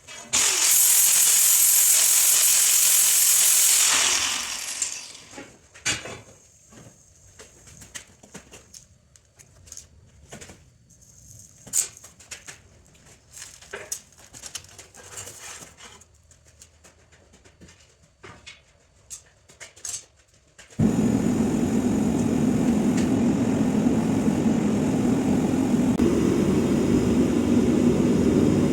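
A loud hiss for about four seconds that dies away, then scattered light knocks and taps. About twenty seconds in, the Swan Mini Mother gas forge burner comes on suddenly and keeps running with a steady, jet-like rush.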